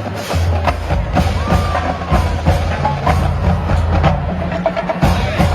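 Music with a steady percussion beat, two to three sharp hits a second over sustained low bass notes.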